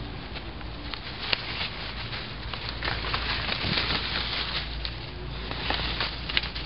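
Plant leaves and stems rustling and brushing close by, with crackling and snapping of dry leaf litter and twigs, including two sharper snaps about a second in and near the end.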